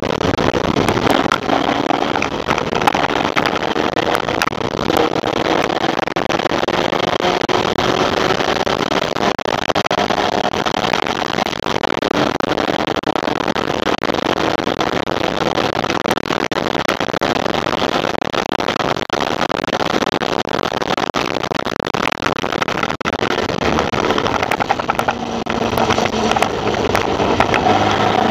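Formula Vee race car's air-cooled Volkswagen flat-four running hard, heard on board over heavy wind and road noise, its pitch rising and falling repeatedly with gear changes and corners.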